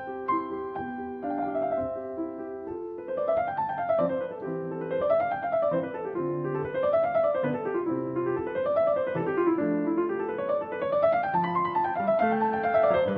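Background piano music: held chords at first, then rising and falling arpeggios that repeat about every two seconds over sustained bass notes.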